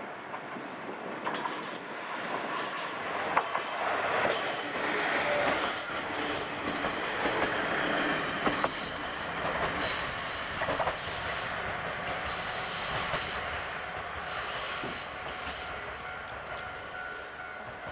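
A Kominato Railway diesel train passing on the rails, its wheels squealing, with a few sharp clicks from the track. It gets louder from about a second in, is loudest in the middle, and fades near the end.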